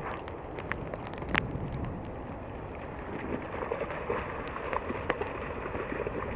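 Rain and wind noise on the camera microphone: a steady hiss with scattered sharp taps of raindrops striking the camera.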